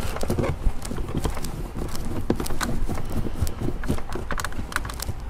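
Irregular clicks and light knocks from a screwdriver working at the plastic dashboard trim of a BMW as its screws are taken out.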